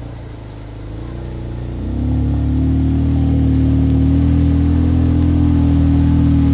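ATV engine running, its revs climbing about two seconds in and then held steady at the higher speed.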